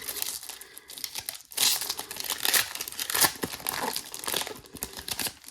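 Plastic wrapper of a trading card pack being torn open and crinkled in the hands, a continuous crackle with louder rips about a second and a half in and again a little past three seconds.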